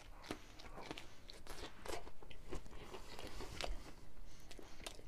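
A person biting into a slice of homemade pizza and chewing it, the crust giving small irregular crunches and clicks.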